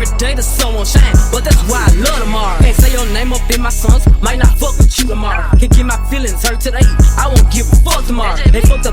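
Hip hop music with a rapped vocal over a steady deep bass and sharp drum hits.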